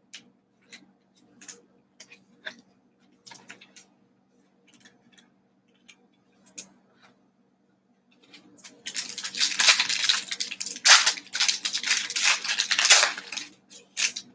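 Plastic wrapper of a 2020 Panini Select football card pack crinkling loudly as it is torn open, starting about two-thirds of the way in and lasting some five seconds. Before that, soft scattered clicks and taps of cards being handled.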